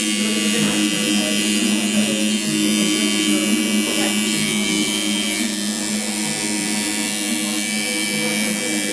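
Electric tattoo machine buzzing steadily at an even pitch while tattooing the back of a neck.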